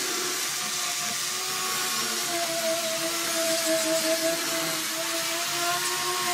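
An electric power tool's motor running steadily with a whine whose pitch wavers slightly.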